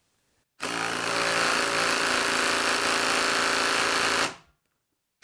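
HILTI cordless impact driver hammering steadily on a lag screw in a log, starting about half a second in and stopping a little after four seconds in. It sounds like it's struggling: the lag has about a half inch left to go and the driver is no longer sinking it, probably because of a knot in the wood.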